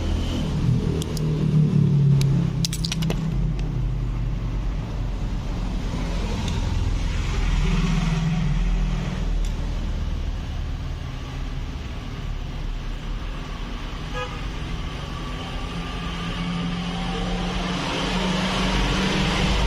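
Road traffic rumbling past, with a car horn tooting, and a few sharp clicks about two to three seconds in.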